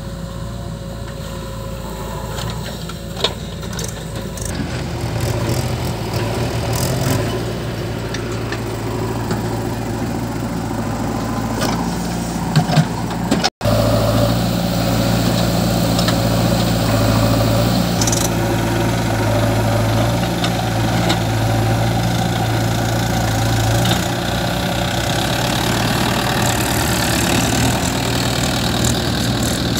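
Diesel engines of a JCB 3DX backhoe loader and a Mahindra Yuvo 575 DI tractor running steadily as the backhoe digs and loads soil, with occasional sharp knocks. The sound breaks off for an instant about halfway through, and after that the engines are a little louder.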